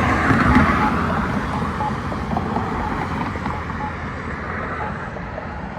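Road traffic passing through a busy intersection, with the faint, regular tick of an accessible pedestrian signal's locator tone from a Campbell push button about once a second while the crossing is in its wait phase.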